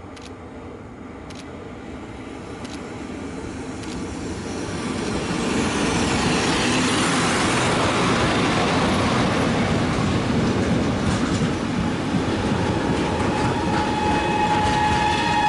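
Freight train hauled by an EU07 electric locomotive approaching and passing close by: the rumble builds over the first six seconds, then the container wagons roll past steadily, their wheels running on the rails. A steady high tone starts up near the end.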